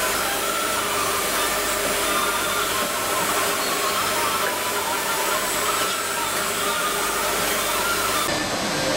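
Steady hiss and hum of running factory machinery, even in level, with no distinct knocks or clanks. The highest part of the hiss drops away near the end.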